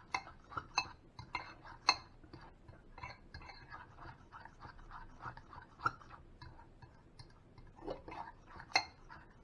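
A fork beating egg and seasonings in a bowl: quick, irregular clicks and scrapes of the fork against the sides of the bowl, with a few louder knocks.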